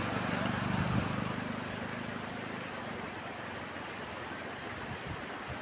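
Motorcycle engine passing close while the bike ploughs through floodwater with a splashing wash. The engine is loudest about a second in, then fades as it moves away, leaving a steady hiss of water.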